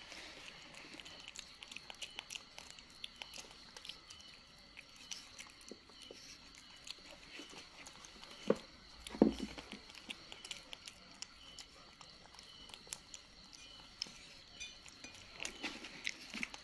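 Baby macaque chewing and smacking on soft mango pieces: a scatter of small wet clicks, with two louder knocks a little past halfway.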